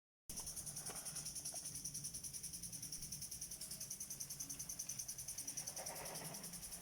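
Insects chirping: a steady, fast, evenly pulsing high-pitched trill.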